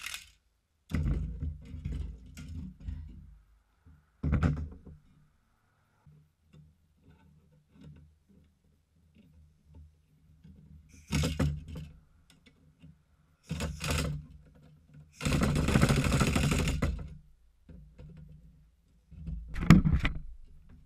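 Pneumatic impact wrench hammering on the bolt of a broken fog lamp bracket in about six short bursts, the longest nearly two seconds, with near silence between. The bracket spins with the socket instead of the bolt breaking loose.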